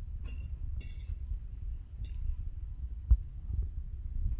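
Light clinks of plates, glassware and cutlery on a set dinner table, with one sharper knock about three seconds in, over a low rumble.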